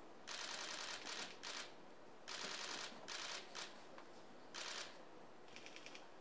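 Several cameras' shutters firing in rapid bursts: runs of quick clicks, about eight of them, each lasting up to about two-thirds of a second with short gaps between, as press photographers shoot a posed face-off.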